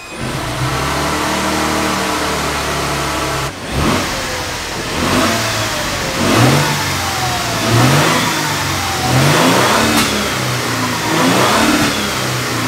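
2023 Toyota Tundra Capstone's twin-turbocharged 3.4-litre hybrid V6 (i-FORCE MAX) running steadily at idle, then revved several times in quick blips, each rise in engine speed falling back toward idle.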